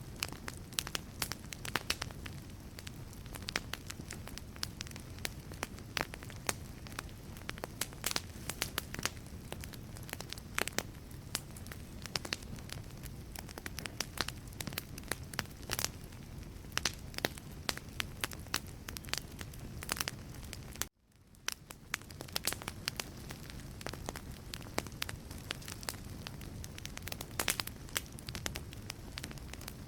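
Wood fire burning in a fireplace: a steady low rumble of flames with frequent sharp crackles and pops from the burning logs. About two-thirds of the way through, the sound cuts out abruptly, then fades back in over about a second.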